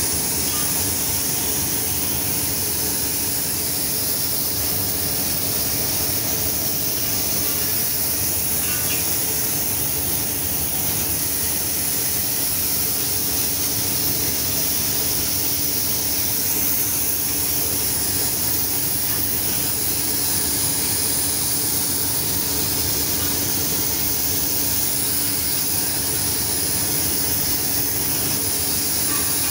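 Paint spray gun hissing continuously as it sprays red paint onto LPG cylinders, with a steady low hum underneath.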